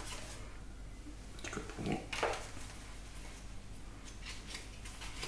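Pokémon trading cards being handled and sorted by hand: faint rustling and flicking of card stock, with a couple of brief louder sounds about two seconds in.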